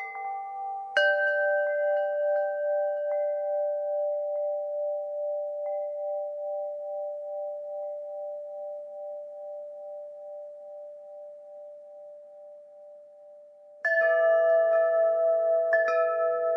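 Deep-toned wind chimes: a few tubes are struck together about a second in and ring on with a slow wavering, fading gradually for over ten seconds. Near the end, two fresh clusters of strikes set several tones ringing loudly again.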